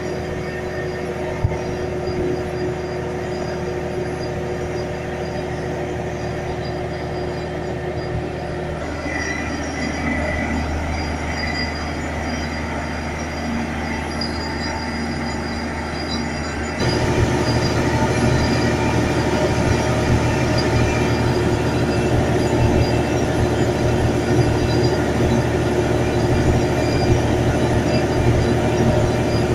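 Volvo Penta TAD1343VE six-cylinder diesel engine running a large air compressor, a steady heavy drone. The sound shifts about nine seconds in and grows louder about seventeen seconds in, then holds steady.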